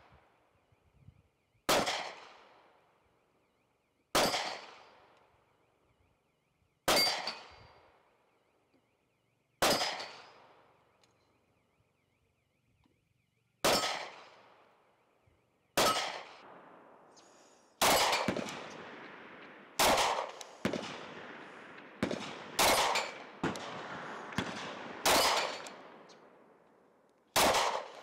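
A SCCY CPX-2 9mm pistol firing single shots, about eleven in all. Each is a sharp crack with a ringing, echoing tail. The shots come a couple of seconds apart at first and a little quicker in the second half.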